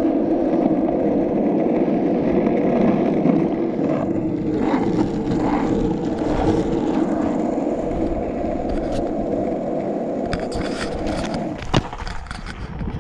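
Skateboard wheels rolling over rough asphalt with a steady, loud rumble. Near the end the rumble cuts off with a sharp knock, followed by a few light scuffs as the board comes to a stop.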